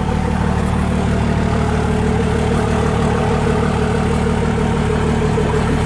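A motor vehicle's engine idling steadily, a constant low hum with a steady higher drone over it.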